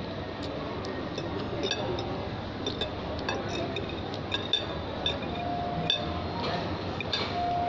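Light clinks and taps of tableware being handled, scattered irregularly over a steady background hiss.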